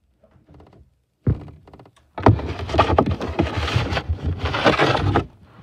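A thump, then about three seconds of loud rubbing and bumping close to the microphone: the camera being handled and covered.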